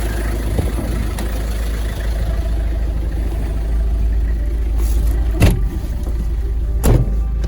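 Car driving: a steady low rumble of engine and road noise, with two sharp knocks, about five and a half and seven seconds in.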